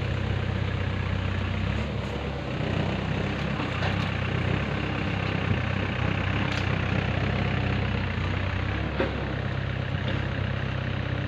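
An engine running steadily at one speed, a low even hum, with a few faint knocks.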